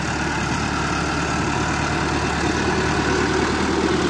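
Massey Ferguson 385 tractor's four-cylinder diesel engine running steadily as the tractor drives across the field, a little louder in the last second or so.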